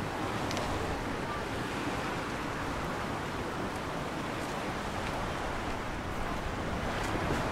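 Steady, even outdoor noise with a few faint clicks.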